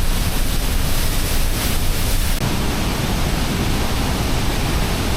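A large waterfall pouring down: loud, steady rushing water noise, heavy in the low end.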